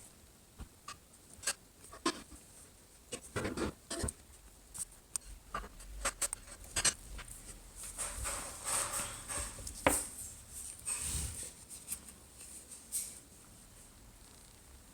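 Hands working on a Samsung Galaxy S4 and its new glass screen: scattered light clicks and taps, with a few seconds of rustling around the middle.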